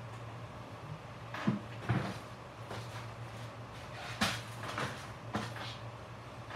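Workshop storage drawers and cabinets being rummaged through in a search for parts: about six separate clunks and clacks, the loudest a little past four seconds in, over a steady low hum.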